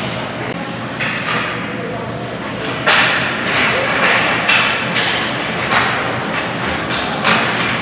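Ice hockey play in a rink: about half a dozen sharp knocks and thuds of sticks and puck, some against the boards, over a murmur of crowd voices.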